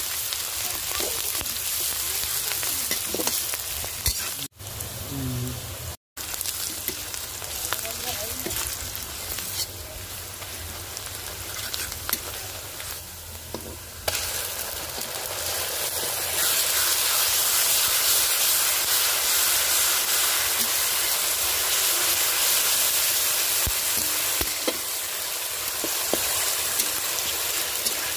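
Onions frying in hot oil in a wok: a steady sizzle with the scrape and clink of a metal spatula stirring. About halfway through, ginger-garlic paste goes into the oil and the sizzle gets louder and stays so while it is stirred.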